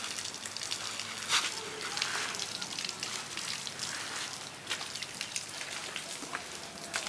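Water from a hose splattering onto wet mud: an uneven crackling hiss with scattered sharp clicks.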